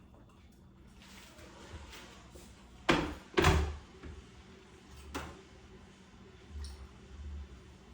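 Knocks and thuds of kitchen things handled on a counter: two loud sharp knocks about half a second apart, a lighter knock a couple of seconds later, then soft low thuds.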